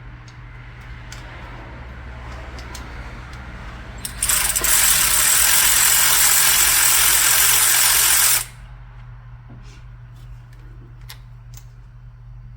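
Power tool running in one steady burst of about four seconds, undoing a fastener on the EGR line, with light metallic clicks and rattles of hand tools before and after it.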